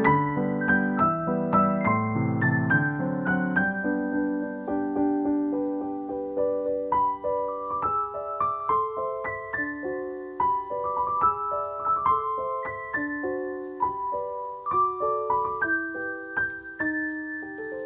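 Background piano music: a slow melody of single struck notes, over low chords that drop away after about four seconds.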